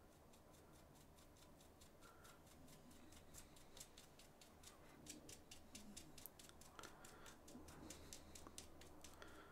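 Faint, rapid clicking, several light ticks a second, from a plastic part of a Daiwa Alphas SV TW baitcasting reel being slowly unscrewed by hand.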